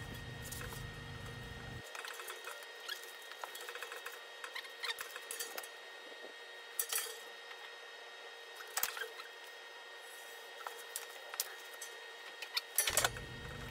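Faint, irregular light clicks and taps of measuring tools and a marker being handled against a steel pipe while door outlines are laid out on it, over a faint steady hum.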